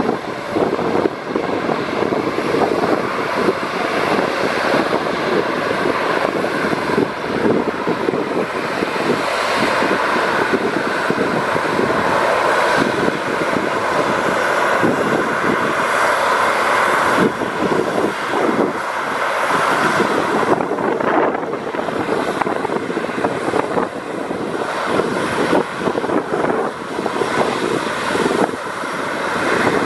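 Jet airliner engines running on the runway: an Airbus A321neo's Pratt & Whitney geared turbofans, with a second jet airliner taxiing past nearer the microphone. The steady jet rumble grows somewhat louder around the middle and eases off after about two-thirds of the way through.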